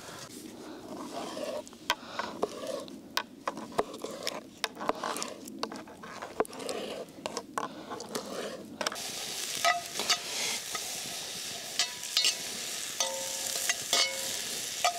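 Chopped onion sizzling as it sweats in hot oil in a Dutch oven, stirred with a utensil that clicks and scrapes irregularly against the pot. The sizzling grows steadier and louder about halfway through.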